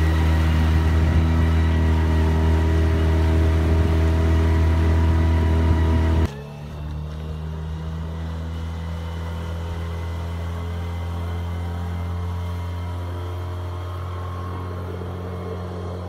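Outboard motor on an inflatable boat running at a steady pace, loud and close at first; after a sudden cut about six seconds in it is quieter and farther off as the boat speeds across the water.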